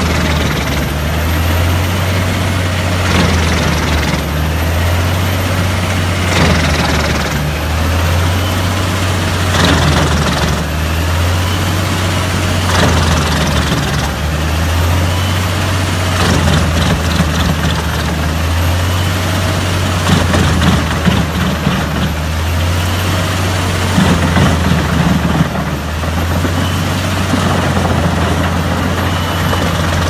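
Doppstadt DH 812 Q wood chipper and the tractor driving it, running under load with a heavy, steady drone that wavers in pitch. Louder crunching bursts come every few seconds as logs are chewed into the feed rollers and drum, heaviest about two-thirds of the way through.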